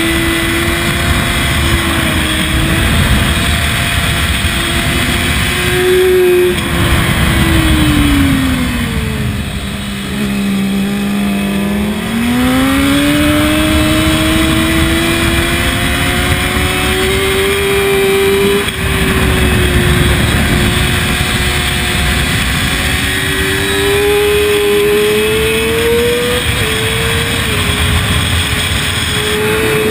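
Sport motorcycle engine running hard under wind rush at speed. Its pitch slides down for a few seconds, holds low, then climbs steadily, with two quick drops in pitch later on.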